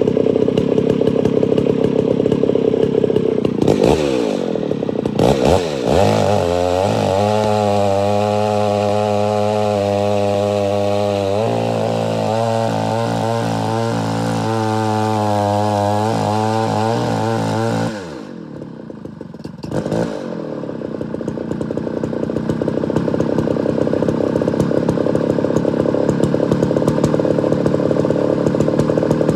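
Homelite Super XL 925 two-stroke chainsaw revving up about four seconds in and cutting into a log at full throttle for about twelve seconds. About eighteen seconds in it drops back to a lower, steady idle.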